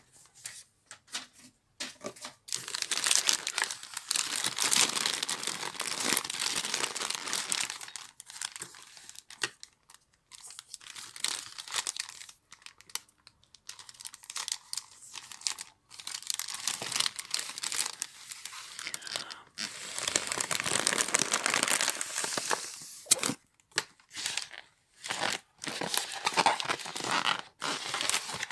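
Metallic foil wrapper of a toy surprise pack crinkling and tearing as it is unwrapped by hand, in spells of a few seconds broken by short pauses.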